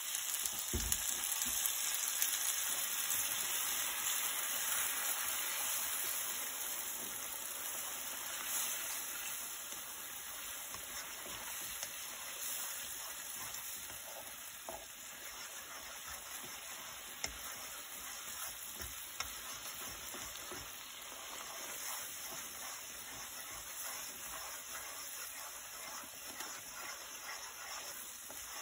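Cheese sauce sizzling and bubbling in a frying pan as chopsticks stir it. The sizzle eases a little after the first several seconds.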